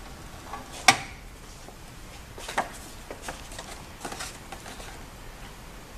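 Handling noises from a manual glue binding machine: one sharp click about a second in, then lighter clicks and rustling as the cover paper and the glue unit's handle are worked by hand.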